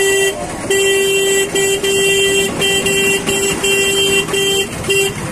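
A vehicle horn honking again and again at one steady pitch: about ten blasts, some short toots and some held for nearly a second, over the noise of street traffic.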